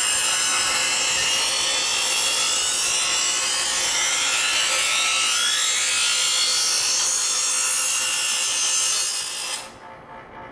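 Chef's Choice EdgeSelect electric knife sharpener grinding a knife blade: a loud, steady, hissing grind as the blade is drawn through the abrasive wheels. It cuts off sharply near the end when the blade is lifted out, leaving only the motor's faint hum.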